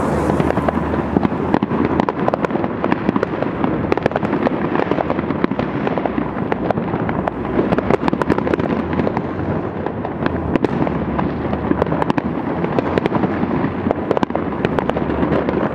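Fireworks and firecrackers going off in many places at once: a dense, unbroken crackle of pops and bangs, with no single burst standing out.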